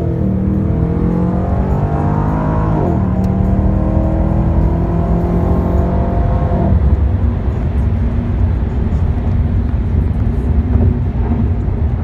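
2015 Chevrolet SS's 6.2-litre V8 heard from inside the cabin under acceleration. The engine note rises, drops at a gear change about three seconds in, and rises again through the next gear. Around seven seconds in it settles into a steady road rumble as the car cruises.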